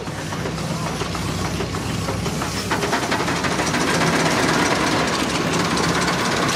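Steam traction engine working under load as it pulls a large gang plow: a steady hiss and rhythmic exhaust, growing slightly louder.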